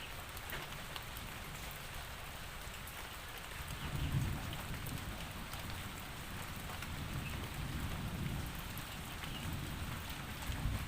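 Steady rain falling, with a patter of individual drops, and a low rumble of thunder coming in about four seconds in and rolling on.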